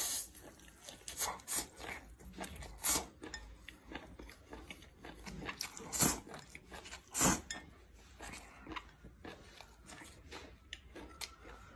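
Close-up eating sounds of a man slurping long strands of seafood into his mouth and chewing, a run of sharp slurps. The loudest come about six and seven seconds in.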